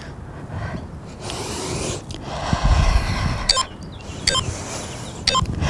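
Rustling and rubbing noises from a person moving through a bodyweight exercise on a mat, with a low rumble about three seconds in and a few sharp clicks near the end.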